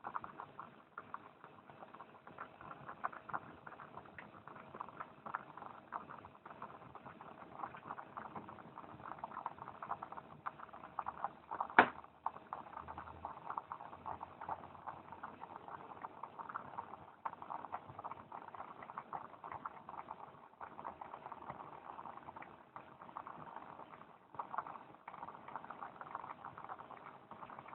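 Food cooking over an outdoor fire: a steady, dense crackling and sizzling patter, with one sharp loud click about twelve seconds in.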